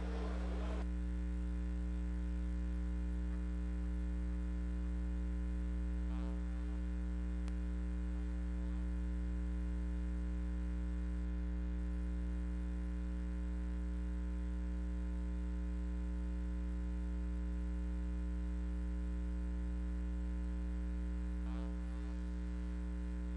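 Steady electrical mains hum: a low buzz made of one fixed tone and a stack of evenly spaced overtones, with two faint brief sounds, about six seconds in and near the end.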